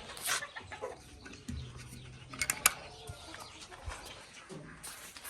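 Chickens clucking softly in their pens, with a few sharp clicks about two and a half seconds in.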